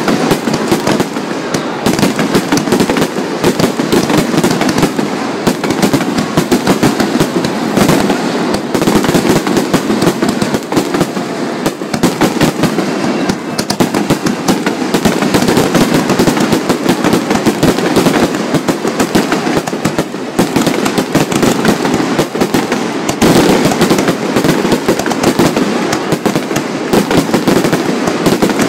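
Loud fireworks barrage: aerial shells bursting in rapid, overlapping succession, a continuous run of bangs and crackling with no break.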